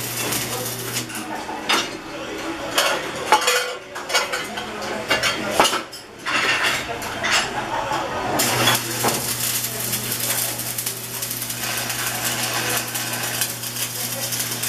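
Stick arc welding on steel cowbell parts: the arc crackles and spits over a steady low hum, with irregular clicks in the first few seconds and a short break a little before the middle. From just past the middle it settles into a dense, steady crackle.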